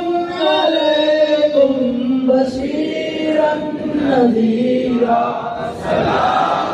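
A single man's voice chanting in long held notes that glide slowly up and down. About six seconds in, the sound turns rougher and fuller.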